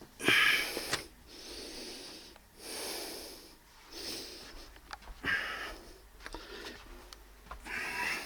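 Heavy breathing close to the microphone, a series of noisy breaths about one every second or so, over the faint steady hum of the Optoma UHZ65 projector's cooling fan.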